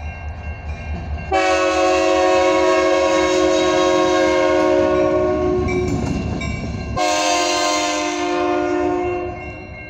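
CN SD60 diesel locomotive's air horn sounding two long blasts, each a chord of several notes: the first from about a second in, held for about five seconds, and the second from about seven seconds in, held for about two seconds. A low rumble from the passing locomotive runs under the first blast.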